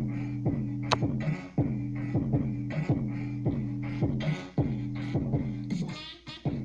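Bass-heavy music with a driving, repeating beat, played loud through a homemade toolbox boombox built from two car speakers and an amplifier. The bass drops out briefly near the end.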